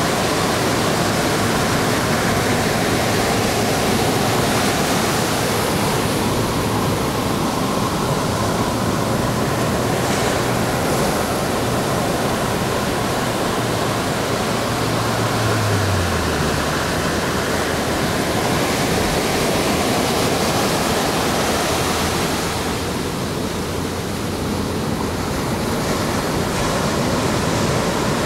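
Ocean surf breaking and washing up a sandy beach: a steady, continuous rush of waves. A low hum runs underneath and drops in pitch about halfway through.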